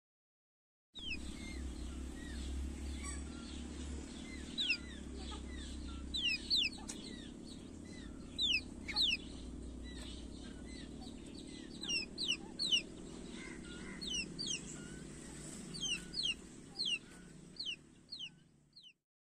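A flock of young chickens peeping: many short, high, falling peeps, some in quick pairs, over a steady low hum. The sound starts about a second in and cuts off just before the end.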